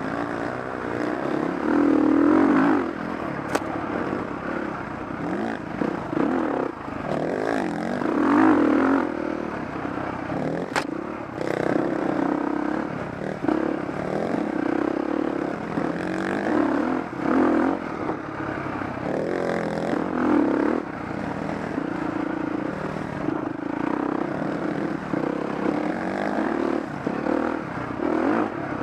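Off-road motorcycle engine running at varying revs, the pitch and loudness swelling and dropping back every few seconds as the throttle is opened and closed, with clatter and a couple of sharp knocks.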